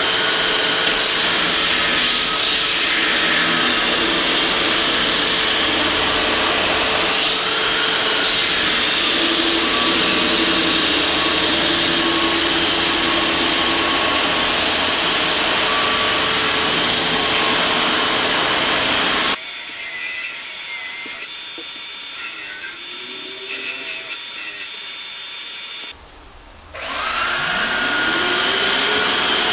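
Handheld power tool trimming a wooden mantle base to its scribe line, with a shop vacuum running as dust extraction and holding a steady whine. About two-thirds through, the sound drops abruptly to a quieter hum. A few seconds later it nearly stops, then a motor spins back up with a rising whine.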